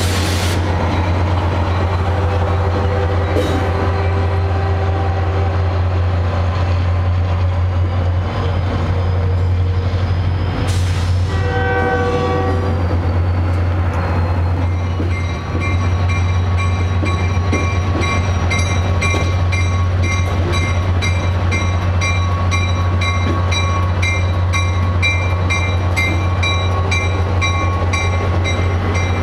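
Diesel locomotive of a commuter train running with a steady low drone. About twelve seconds in comes a short train horn blast. From about halfway through, a bell rings steadily at about two strikes a second.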